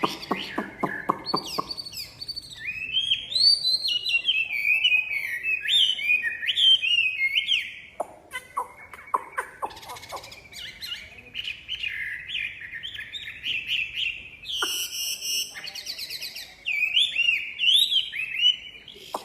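Chinese hwamei (wambi) singing a long, varied song of rapid whistled phrases that glide up and down, with a burst of very high, fast repeated notes about fifteen seconds in.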